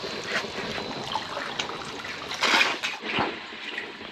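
Spirit from a homemade still's first distillation of cashew-apple juice trickling and dripping from the outlet tube into a steel funnel and plastic water jug, with a louder burst of noise a little past halfway.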